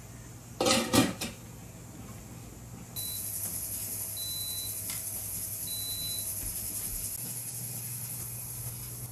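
A brief clatter of kitchen handling, several sharp knocks close together, about a second in. From about three seconds a steady high hiss runs on, with three short high electronic beeps from an appliance spaced a second or so apart.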